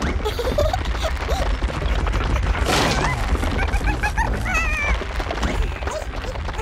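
Cartoon sound effects over low background music: a short rushing sound a little before the middle, then a run of short, squeaky, wavering whimper-like character noises.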